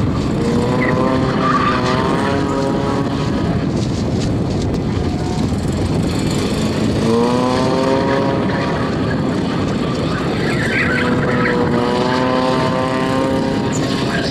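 Spec Miata race car drifting around a skid pad: its four-cylinder engine is held at high revs under throttle, dipping and then climbing again about halfway through. The tyres squeal in short spurts as it slides.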